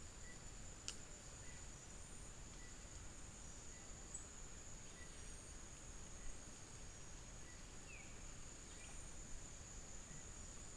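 Forest insects, such as crickets, keep up a steady high-pitched trill. A fainter chirp repeats a little more than once a second. There is one soft click about a second in.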